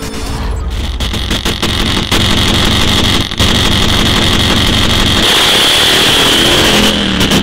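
Top fuel drag motorcycle's nitromethane-burning engine running very loud, then going to full throttle as it launches, louder and sharper from about five seconds in.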